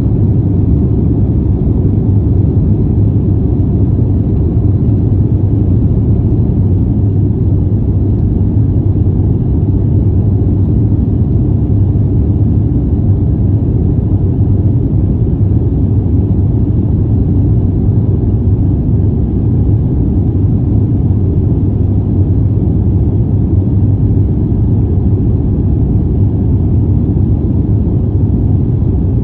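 Steady low rumble inside a jet airliner's cabin as it climbs after takeoff: engine and airflow noise heard from a window seat.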